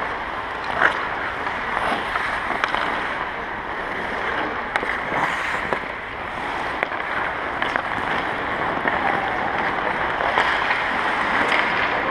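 Ice hockey skates scraping and gliding on the rink ice, a steady hiss, with a handful of sharp clacks of sticks and pucks scattered through it.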